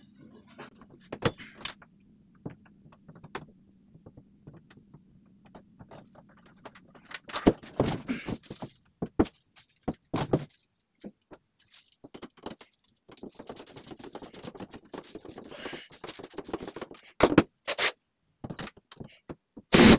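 Scrapes, knocks and thuds as a medicine cabinet is lifted, shifted and held against a bathroom wall, with a cordless drill starting up right at the end.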